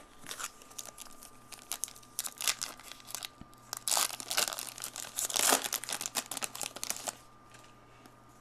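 Foil trading-card pack wrapper crinkling and tearing as it is opened, in irregular crackles that stop about seven seconds in.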